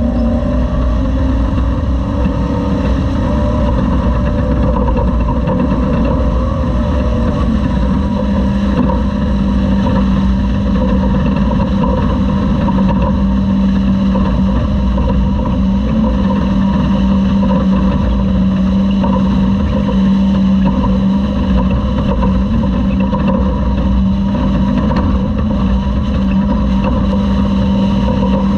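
Onboard a Toyota Class 2000 off-road race truck at speed: the engine drones at a nearly steady pitch, settling slightly lower in the first few seconds, over a constant low rumble from the truck crossing the course.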